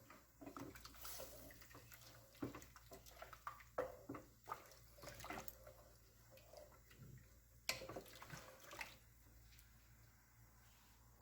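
A spoon stirring mutton bones in water in a cooking pot: faint sloshing with irregular knocks and scrapes of the spoon and bones against the pot.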